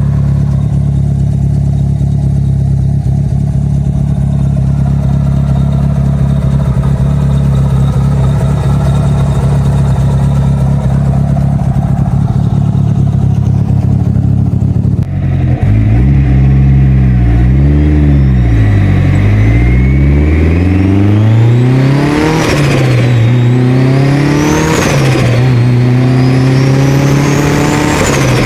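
Turbocharged Mitsubishi Lancer Evolution 4G63 four-cylinder, blow-off valve deleted, running at a steady note, then revving up and down repeatedly from about halfway. Near the end a turbo whistle climbs steeply and drops off sharply twice as boost is released.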